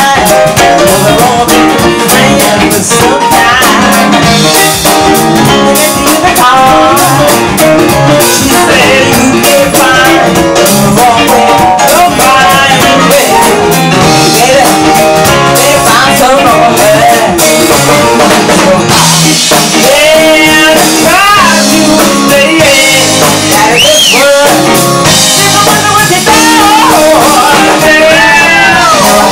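Live funk band playing at full volume: a woman's lead vocal with a second female voice, over keyboards, electric guitar, bass and drum kit.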